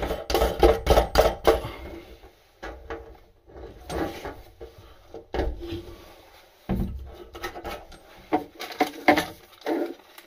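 Clicks, knocks and rubbing from kitchen mixer-tap fittings being handled and fitted: a quick rattle of clicks in the first second and a half, then single knocks every second or so.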